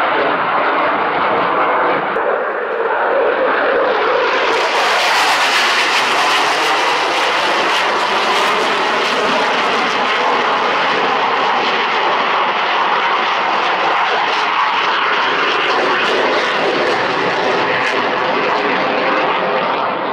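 Fast military jet flying overhead: a loud, continuous rush of jet engine noise that turns brighter and harsher about four and a half seconds in, easing slightly near the end.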